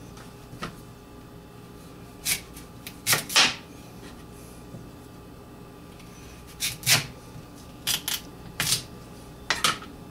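Kitchen knife cutting a Korean radish on a plastic cutting board: about ten separate sharp knocks and taps, some in quick pairs.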